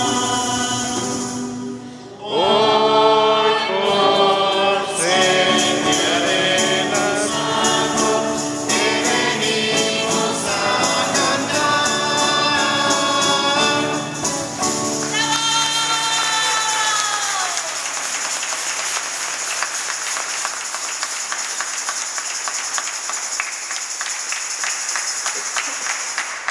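Group of voices singing a devotional song to the Virgin of Guadalupe with a light jingling beat, ending about two-thirds through on a long held note, then applause.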